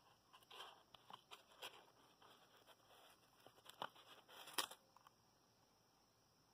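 Faint scraping, creaking and small clicks of a hand working a Stirling engine on its styrofoam-packed cup of ice, with two sharper clicks about four and four and a half seconds in.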